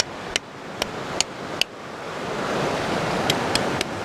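Sharp, ringing taps of a metal pick striking rock, chipping away at the stone around an ammonite to free it, four in quick succession and then three more near the end. Rushing river water runs underneath and swells about halfway through.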